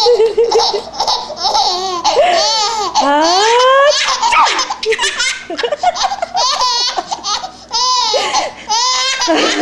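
Five-month-old baby girl laughing hysterically in high-pitched squealing peals that rise and fall in pitch, pausing briefly for breath between them.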